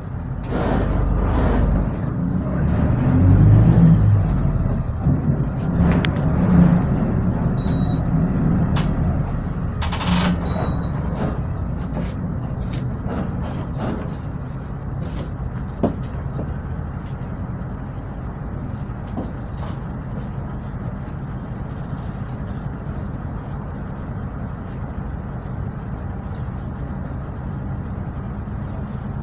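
Volksbus/MAN 17-230 OD city bus running, its engine louder for the first several seconds and then settling to a steady drone, with scattered rattles and clicks. A short hiss comes about ten seconds in.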